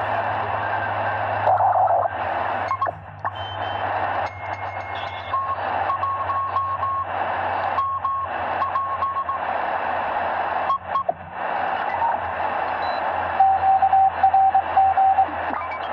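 Degen DE1103 shortwave receiver in single sideband, tuned slowly across the 40-metre amateur band: a steady hiss of band noise, cut by short dropouts as the frequency steps. Morse code signals come through as keyed beeping tones, one group about a third of the way in and a lower-pitched, louder one near the end.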